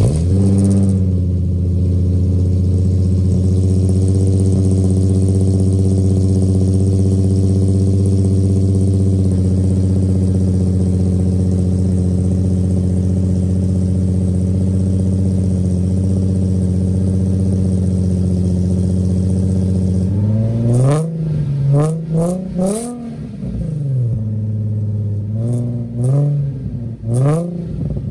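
Nissan 350Z's 3.5-litre VQ35HR V6 on catless test pipes and an ISR single-exit cat-back exhaust, catching from a cold start and settling into a steady fast idle. About twenty seconds in it is revved in a few quick throttle blips, then a second short group of blips near the end.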